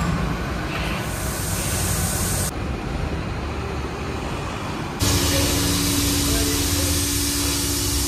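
Steady hissing workshop noise over a low rumble. The hiss drops away abruptly about two and a half seconds in and comes back just as abruptly about five seconds in, joined by a steady humming tone.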